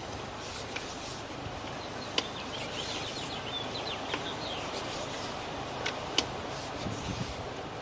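Steady rubbing and scraping of a sewer inspection camera's push cable moving through the line, with a few sharp clicks. A brief run of high chirps comes about two to three and a half seconds in.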